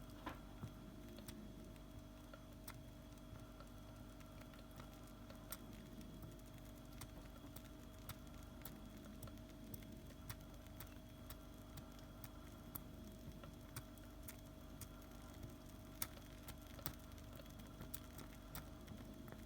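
Near silence with a faint steady hum and small scattered clicks and ticks at irregular intervals.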